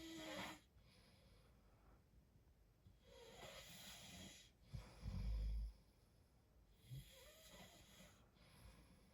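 A sleeping man snoring: three drawn-out, hissy breaths about three to four seconds apart, the first and last with a buzzing tone. A loud, deep thud about five seconds in is the loudest sound.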